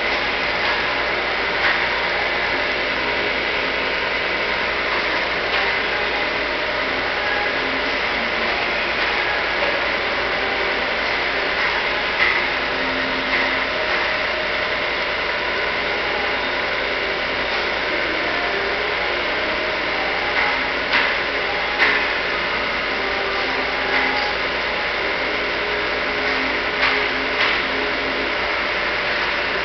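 Vertical milling machine running steadily, a constant mechanical noise with a thin high whine, punctuated by a few short sharp knocks.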